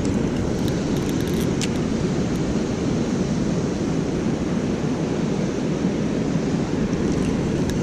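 Steady rush of water pouring over a dam, an even low noise without let-up, with a couple of faint clicks about a second and a half in.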